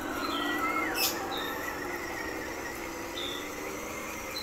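A 1/10-scale RC truck driving away gives a low steady hum that slowly fades. Short high chirps from small birds come and go over it, and there is one sharp click about a second in.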